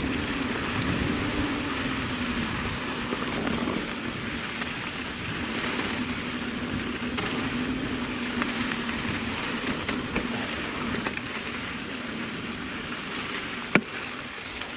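Mountain bike rolling along a dirt trail: steady tyre and wind noise with a low hum and small rattles, and one sharp clack about a second before the end.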